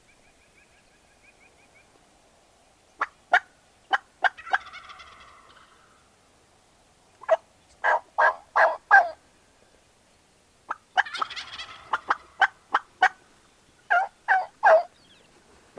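Merriam's wild turkeys calling: two rolling gobbles, with bursts of short, loud turkey yelps before and between them. There are about four quick yelps near the start, five in a row near the middle, and three near the end.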